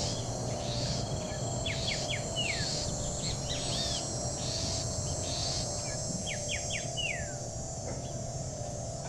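A songbird singing twice: a quick run of three or four short notes ending in a longer falling note. Scattered arched calls come between the phrases, over a steady high insect chirring and a low steady hum.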